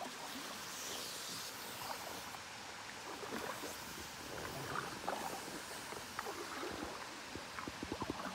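Kayak being paddled on calm water: small splashes of the paddle blade and water dripping, over a steady faint hiss, with a quick run of light ticks near the end.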